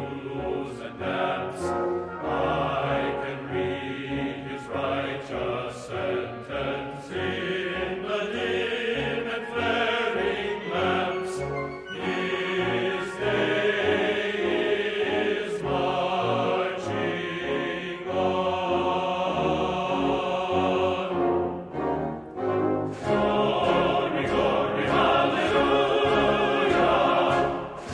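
Background music with a steady flow of changing pitched notes and a brief lull about three quarters of the way through.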